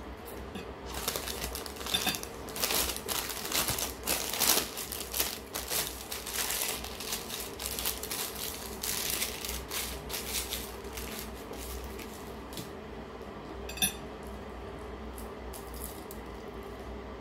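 Paper tissue rustling and crinkling in the hands as greasy fingers are wiped, in irregular bursts, followed by a single sharp click near the end.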